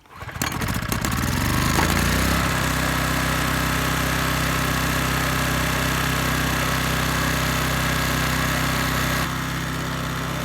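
Subaru SG550 portable generator engine starting up, its speed climbing over about two seconds and then running steadily, just after its carburettor has been cleaned and its idle and slow adjust screws set.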